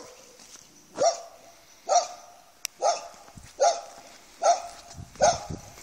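A dog barking repeatedly, six barks at an even pace of about one a second.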